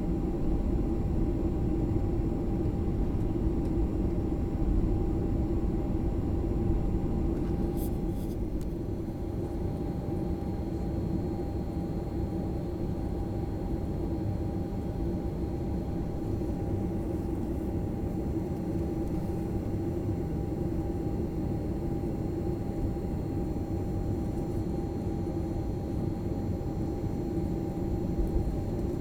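Steady jet airliner cabin noise heard inside the cabin: a low engine drone and airflow rumble with a constant hum. A brief click comes about eight seconds in.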